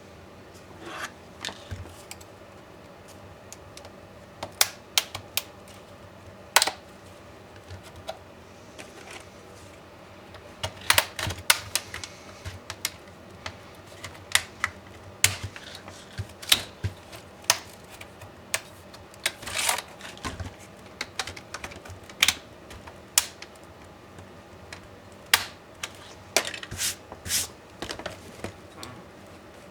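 Irregular sharp clicks and light knocks of small laptop parts and hand tools being handled and set down during disassembly of an MSI GT72VR laptop. Some come singly, some in quick clusters.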